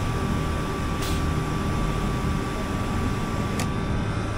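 Soda fountain dispensing cola into a plastic cup over a steady mechanical hum. There is a single click about three and a half seconds in.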